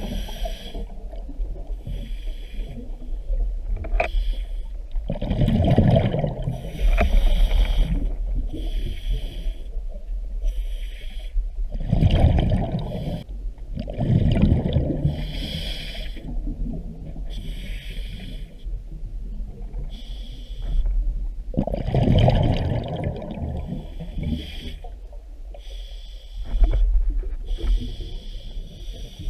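Scuba diver breathing through a regulator underwater: exhaled bubbles rumble out in bursts every several seconds, with fainter hissing between them.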